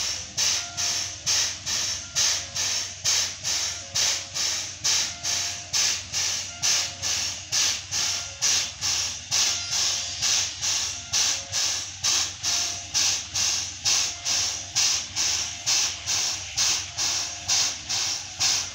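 JNR class C11 steam locomotive hissing in an even rhythm of a little over two puffs a second: its steam-driven air pump working while the engine stands in steam on the turntable.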